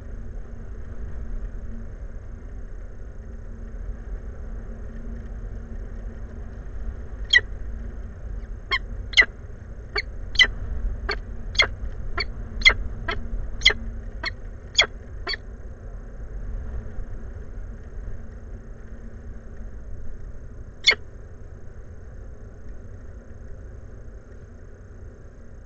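Peregrine falcon giving a run of about a dozen short, sharp calls, roughly two a second, then a single call several seconds later, over a steady low rumble.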